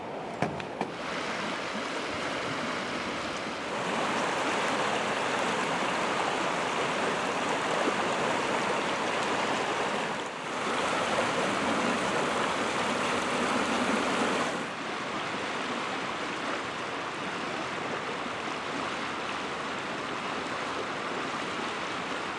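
River water rushing over a rapid: a steady, wideband rush that steps louder and quieter a few times and is loudest through the middle stretch.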